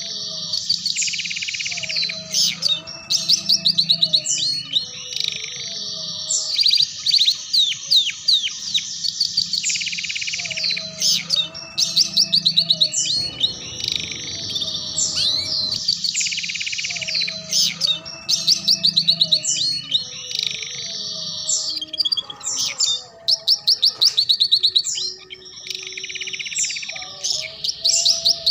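Canary song in the ngeriwik style: long, high-pitched runs of very fast repeated notes and trills, mixed with chirps and short whistled glides, with hardly a pause.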